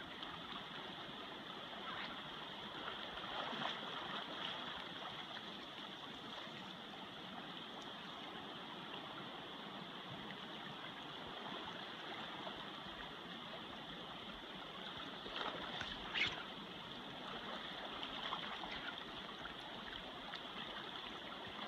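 Steady rushing of river water running over a shallow, rocky riffle, with a few faint brief ticks.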